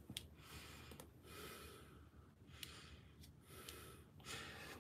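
A person breathing faintly near the microphone, in soft repeated breaths about a second apart, with a few small sharp clicks between them.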